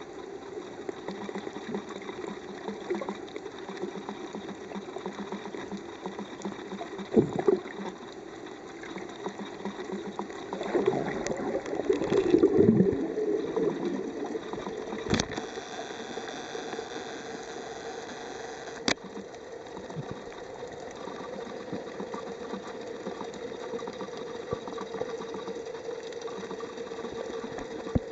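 Steady, muffled engine hum carried through the water, heard from underwater. About 11 to 13 seconds in, a louder rush of water noise swells and fades, and two sharp clicks come a few seconds later.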